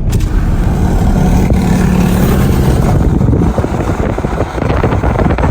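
A car driving, heard from inside the moving vehicle: loud, steady road and wind noise with a low rumble.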